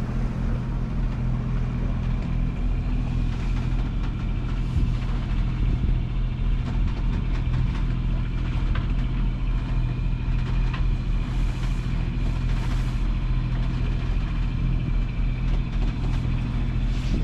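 Sailing catamaran's inboard diesel engine running at a steady low drone while motor sailing, with the hiss of water along the hulls.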